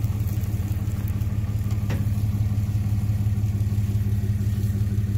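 A truck engine idling steadily, a low even hum that holds the same pitch and level, with one faint click about two seconds in.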